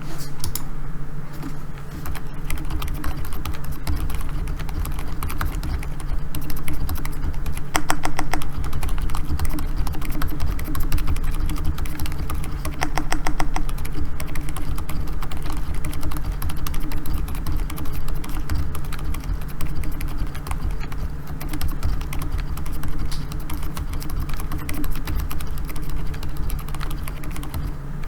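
Continuous typing on a Keychron K4 keyboard with hand-lubed Gazzew Bobagum silent linear switches, PBT cherry-profile keycaps and a steel plate: soft, damped keystrokes in an irregular stream, with a couple of quick flurries. Underneath is a low steady hum from the recording being boosted 30 dB.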